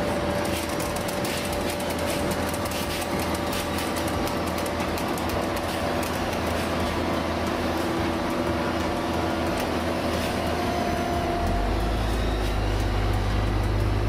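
Dynapac SD 135 C tracked asphalt paver working, its diesel engine running with a steady hum under metallic rattling and clicking from the machine. A deeper low rumble comes in near the end.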